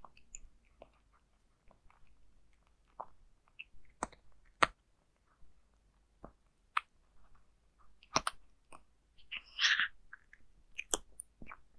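A cat crunching dry kibble from a bowl, picked up close by lapel microphones: irregular sharp crunches, the loudest about four and a half seconds in and again near eight and eleven seconds, with a longer crunch a little after nine seconds.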